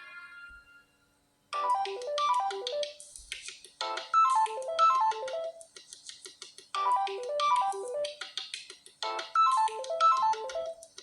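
Samsung Galaxy A03 ringtones. One tone fades out in the first second, and after a brief gap another starts about a second and a half in. The new one is a short melody of quick notes stepping downward, looped about every two and a half seconds.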